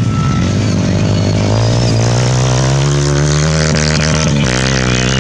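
Dirt bike engine accelerating, its pitch climbing over the first couple of seconds, then held high, with a brief break about four and a half seconds in.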